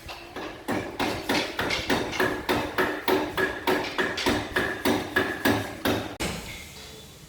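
Mallet striking a wood-carving chisel by hand: a steady run of sharp blows, about three to four a second, each ringing briefly. The blows stop about six seconds in.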